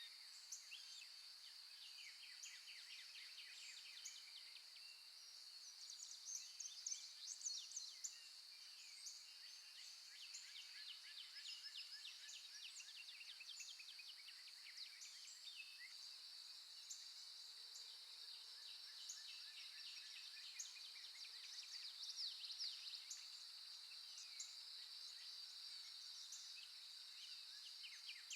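Faint recorded birdsong: several birds chirping and trilling in quick runs of notes, over a steady high-pitched hiss.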